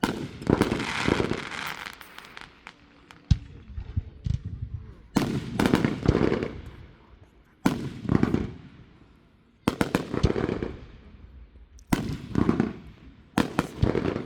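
Fireworks going off in quick succession, about seven sudden bangs roughly two seconds apart, each followed by a second or two of rapid smaller pops and crackles that die away.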